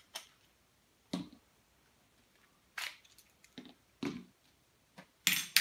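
Scattered clicks and knocks of hands taking the grip off a Baikal Makarov MP-658K CO2 air pistol: the grip screw is undone and the grip is pulled from the frame and set down, with the loudest knock near the end.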